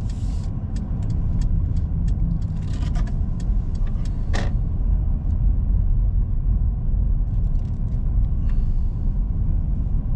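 A car in motion, heard from inside the cabin: a steady low rumble of engine and tyre noise, with a few faint clicks.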